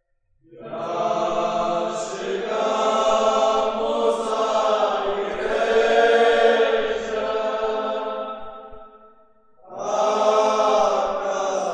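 Group of pilgrims' voices chanting a rosary prayer together in a slow, drawn-out recitation. The chant fades out about nine seconds in and a new phrase begins a moment later.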